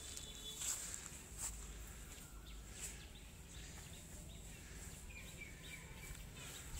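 Faint outdoor ambience: a few short bird chirps over a steady high hiss and a low wind rumble.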